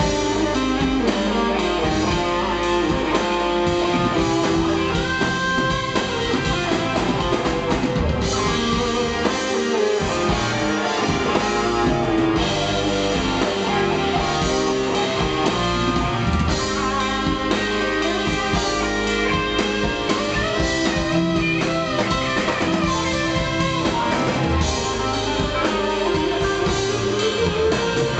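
Instrumental passage of a rock song: guitar lead with drums and no singing.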